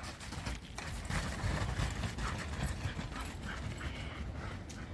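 Footsteps crunching in snow: a quick, irregular run of crunches over a low rumble.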